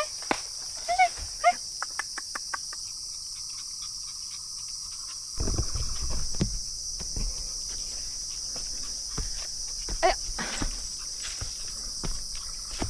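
A steady, high-pitched chorus of insects such as crickets or cicadas, with a few short sharp chirps in the first second or two and again about 10 s in. From about 5 s in, low rustling and knocking noise joins it, like footsteps or handling.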